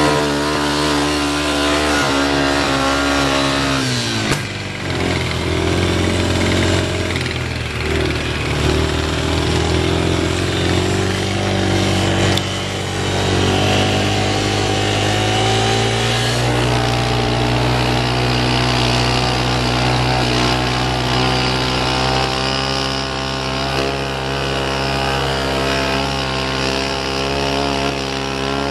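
ATV engine running while riding. The revs drop about four seconds in, then pick up again and hold steady from about sixteen seconds on.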